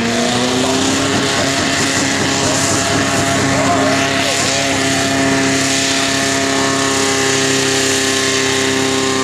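Diesel farm tractor engine at full throttle, pulling a tractor-pull sled. Its pitch climbs briefly at the start, then holds steady and high under load.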